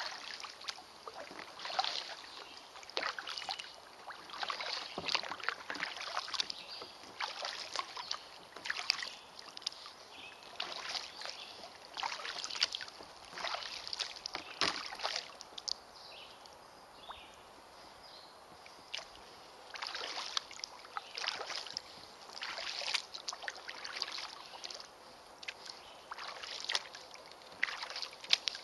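Kayak paddle blades dipping and pulling through water, a splash and drip about once a second, with a few seconds of quieter gliding in the middle before the strokes resume.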